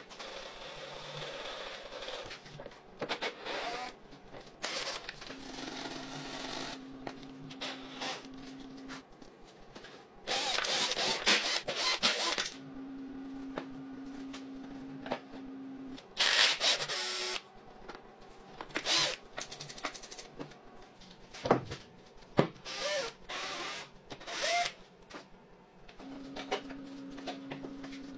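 Teardown of a rusty, mud-caked mini dirt bike: scattered knocks, scrapes and rattles of parts being pried loose and pulled off by hand, with a few louder bursts of a power tool.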